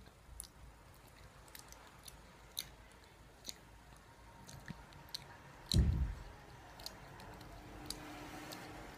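Close-up chewing of a soft chewy sweet, with short wet mouth clicks every second or so. A single low thump about six seconds in is the loudest sound.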